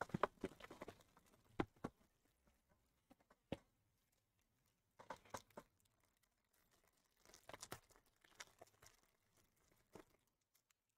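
Cellophane box wrap and a foil trading-card pack crinkling and tearing as they are pulled open by hand, in short bursts with quiet gaps between.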